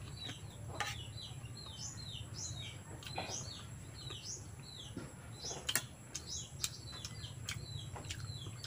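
Small birds chirping over and over in short, falling chirps, about two a second. A few soft clicks and knocks come in between, the sharpest a little past the middle.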